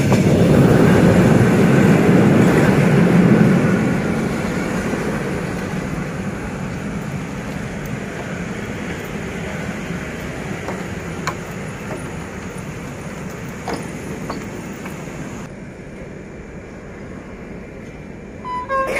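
Freight train's covered wagons rolling past close by, the wheels running on the rails in a loud steady rumble that fades away gradually as the train moves off.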